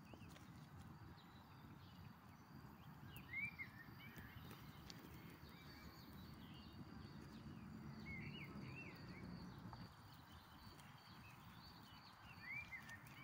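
Near silence with a low steady rumble and three brief bursts of high, quick bird chirps, about three seconds, eight seconds and twelve seconds in.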